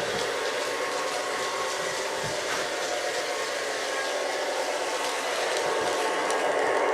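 Lionel O-gauge Alco S4 switcher locomotive running forward along the track, a steady whirring hiss.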